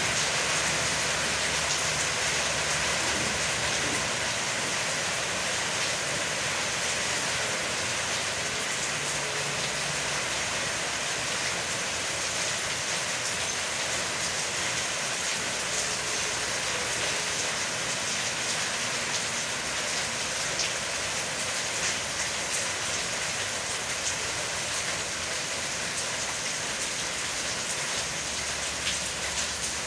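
Steady rain falling, with faint scattered ticks of drops.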